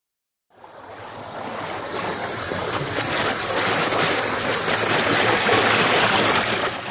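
River water rushing over boulders and a low stone weir: a steady rush that fades in from silence about half a second in.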